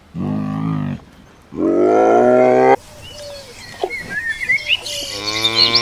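Two short pitched animal calls, each cut off abruptly, then small birds chirping and a cow starting a long moo near the end.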